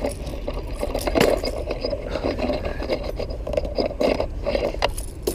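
Handling noise in a canoe: irregular scrapes, clicks and knocks as a freshly landed bass is unhooked. A sharp knock comes about a second in.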